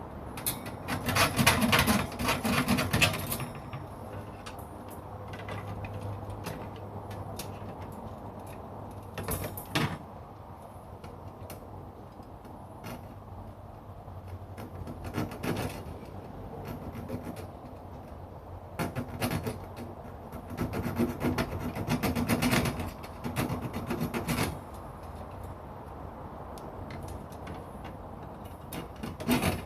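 Scraping and rattling from work on the metal grill grate of a UCO Flatpack fire pit: a long burst of rapid strokes at the start, short clatters at intervals, and another long burst in the second half.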